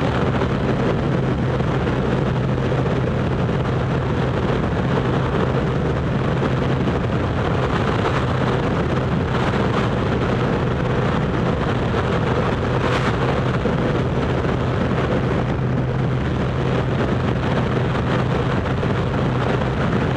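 Motorcycle engine running at a steady cruise, heard from the rider's seat with a constant rush of wind and road noise; the pitch stays even throughout.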